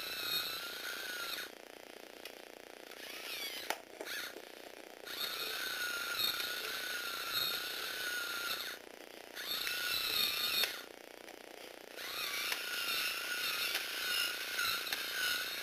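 Small electric motor of a Tamiya 4-speed crank gearbox whining as it drives the gears and legs of a Lego Technic eight-legged walking robot. It runs in spells of one to a few seconds, stopping and starting again five times, its pitch wavering slightly as it runs.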